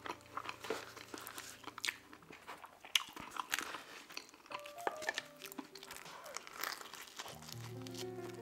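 Close-miked chewing and biting of stuffed-crust pepperoni pizza, with wet mouth clicks and smacks.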